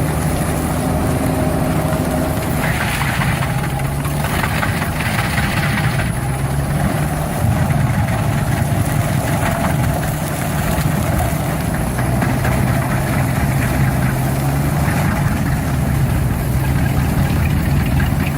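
A stump grinder's engine running steadily under load, with a rougher stretch of grinding noise a few seconds in as it chews into the stump.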